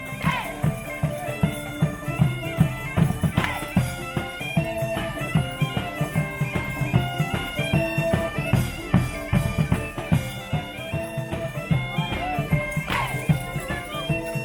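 Bagpipes playing a melody over a steady drone, with a drum beating along.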